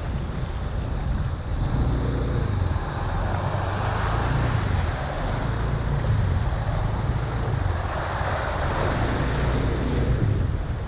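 Vehicles driving through a flooded street, a steady rush of water and traffic noise with wind buffeting the microphone, swelling louder twice, about four and about eight seconds in.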